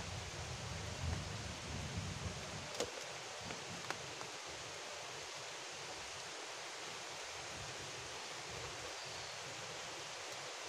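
Steady rain falling, a constant even hiss, with a few light clicks about three and four seconds in.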